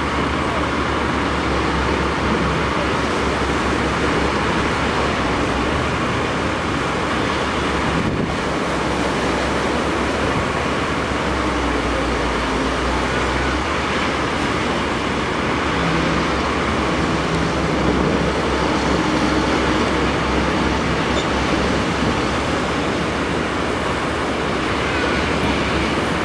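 Diesel engines of a tracked excavator and an articulated dump truck running steadily, with surf washing on the shore, at an even level with no distinct impacts.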